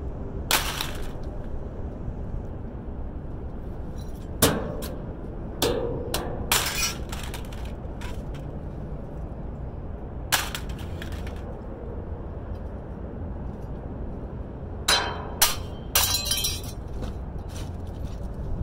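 Scrap metal being handled and dropped: scattered sharp clinks and clatters, some with a short ring, in a few clusters, over a steady low rumble.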